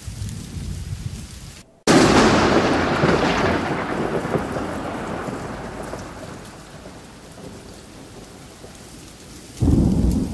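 Thunder: a sudden loud clap about two seconds in that rolls away over several seconds, then a second short, low boom near the end, over steady rain.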